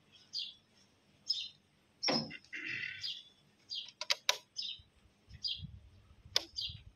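Small birds chirping repeatedly in short high calls, with a few sharp metal clinks midway and near the end as the steel milk pail and measuring jug are handled.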